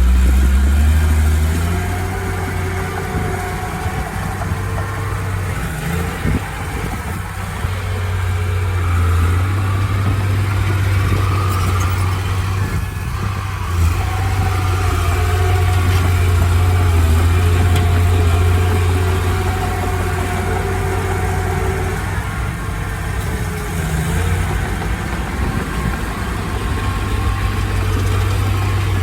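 Heavy diesel engine of earthmoving machinery running steadily with a low drone, easing off slightly about two seconds in.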